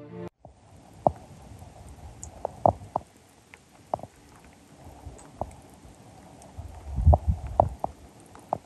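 Light knocks and clicks at irregular intervals over a steady hiss, with a brief low rumble about seven seconds in.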